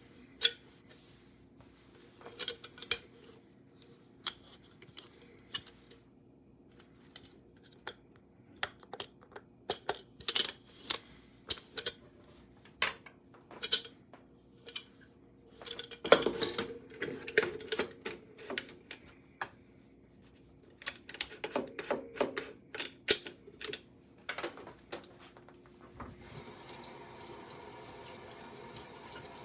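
Hard kitchen items being handled: irregular clinks and knocks, like dishes or utensils being set down. Near the end a steady rush of running water starts, like a tap left on.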